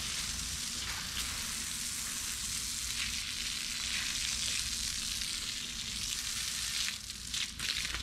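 Garden hose spraying water onto a concrete kennel floor, a steady hiss that breaks up and turns uneven about seven seconds in.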